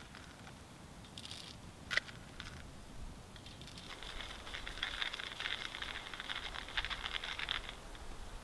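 A couple of light clicks, then a hand coffee grinder cranked for about four seconds: a dense, rapid crunching and ticking as coffee is ground.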